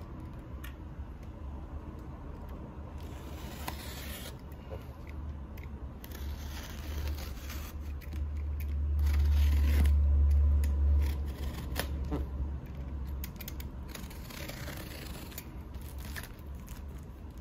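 A utility knife cutting and slitting packing tape and plastic wrap on a cardboard parcel, in several scratchy stretches with tearing and scraping. A low rumble from the box being handled about eight to eleven seconds in is the loudest part.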